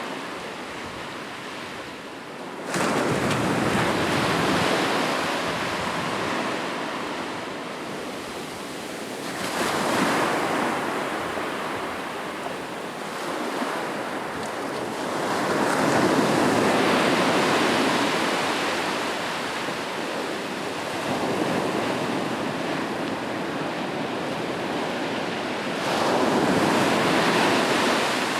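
Ocean waves breaking on a beach: the surf surges and recedes in repeated swells every six to eight seconds, the first breaking in sharply about three seconds in.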